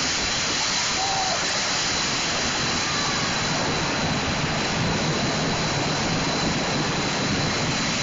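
Steady rushing of churned water, with an engine running underneath, from a homemade ATV-driven paddle boat under way.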